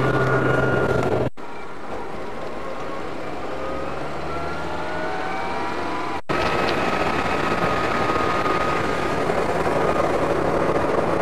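Vehicle engine and road noise heard from inside a moving vehicle, in three stretches split by brief dropouts. In the middle stretch the engine's pitch rises slowly as it speeds up.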